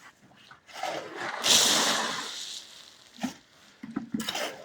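A bucket of wet concrete poured into beam formwork: a rushing, sliding swell lasting about two seconds, then a few short knocks.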